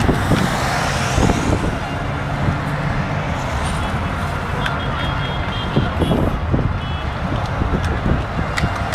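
Road traffic with a crowd at the roadside: a steady mix of car engines rumbling low and tyre and street noise as cars drive slowly past. A few short, thin high-pitched tones sound about halfway through.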